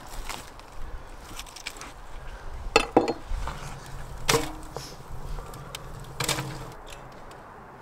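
Wooden planks knocking against the rim of a clay tandoor and dropping onto its burning charcoal: a few sharp wooden knocks, a close pair about three seconds in, then single knocks at about four and six seconds, each with a short ring from the tandoor's body.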